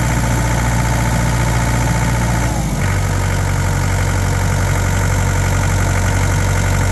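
Takeuchi TB070 excavator's diesel engine running steadily, heard close up at the open engine bay. Its note drops slightly about three seconds in.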